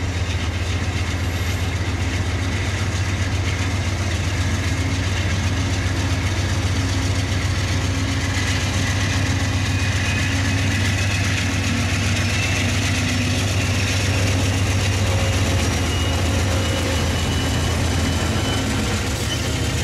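GE P40DC diesel-electric locomotive's prime mover running steadily with a deep, fast chug.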